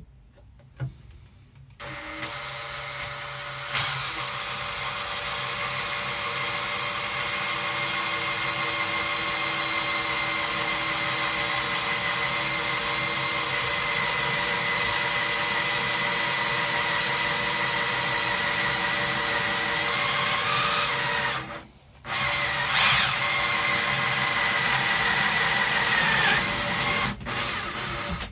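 Makita cordless drill with a cobalt bit boring through the steel body of an old table saw blade: a steady whine that starts about two seconds in. It stops briefly about three quarters of the way through, then runs again for a few seconds. The steel drills easily.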